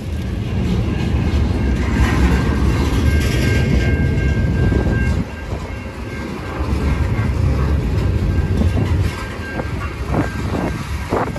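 Freight cars rolling past, a steady low rumble and clatter of steel wheels on the rails. The rumble dips briefly about five seconds in, and a few sharp clicks come near the end.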